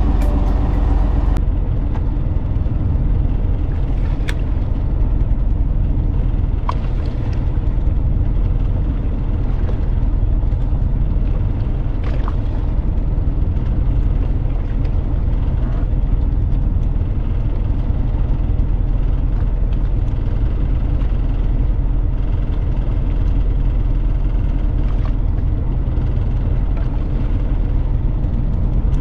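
A fishing boat's engine running: a steady low rumble with a faint hum above it.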